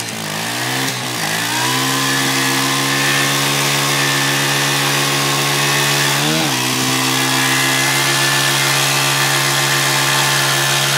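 Honda CRF230F's air-cooled single-cylinder four-stroke engine revved up over the first couple of seconds and held at high revs for a stationary burnout, the rear tyre spinning on the pavement. About six seconds in the revs dip briefly and climb straight back.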